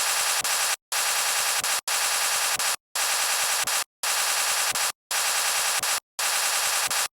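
A person's snoring, sped up: rapid pulsing bursts just under a second long, seven in a row, each cut off by a short gap of dead silence.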